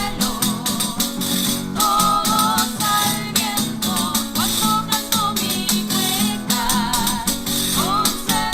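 Cueca urbana band performing: voices singing with vibrato over strummed guitar and rhythmic percussion.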